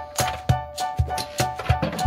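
Background music with a steady, quick percussive beat under a repeating melody.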